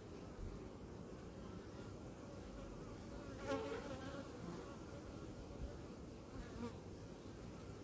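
Honey bees humming steadily around an open hive and a frame held full of bees, a calm colony. A louder buzz swells and fades about halfway through, with a smaller one near the end.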